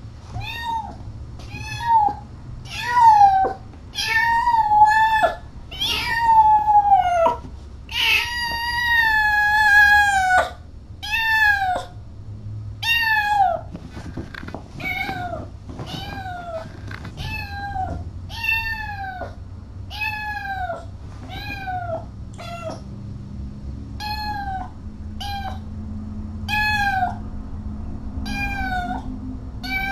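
Cat meowing over and over, about one call a second, each call dropping in pitch at its end. The meows are loudest in the first ten seconds, with one long drawn-out meow about eight seconds in, and then go on more softly.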